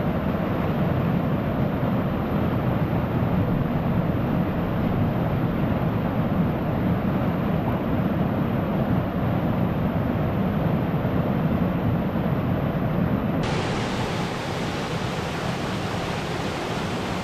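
Steady rushing of a small river's whitewater cascading over rock ledges. Its tone changes slightly about two-thirds of the way through.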